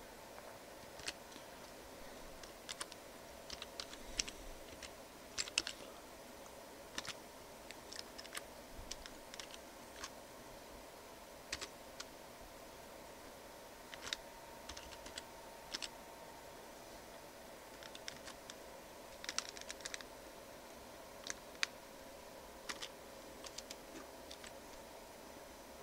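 Computer keyboard typing: single keystroke clicks and short runs of keys, irregular with pauses between them, over a faint steady hum.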